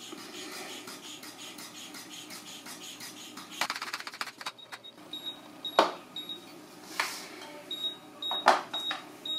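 Rapid clicking, then a run of short, high-pitched electronic beeps at an uneven pace, broken by three sharp knocks; the beeps are typical of a vacuum leak detector's signal.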